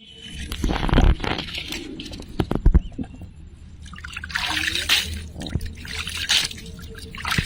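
Water splashing and dripping in short irregular bursts, with two dull thumps, one about a second in and one near three seconds.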